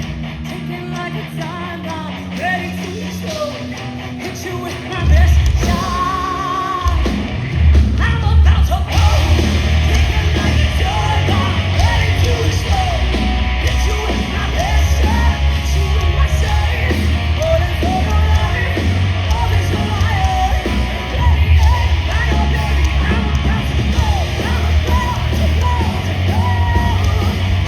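Live heavy rock band playing loud, with sung and yelled vocals; a quieter passage gives way to the full band with heavy drums and bass about five seconds in.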